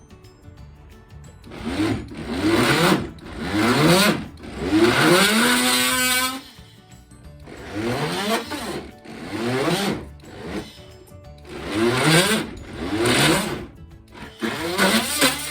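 Oscillating multi-tool cutting into a timber weatherboard in about eight short bursts, its motor pitch climbing within each burst.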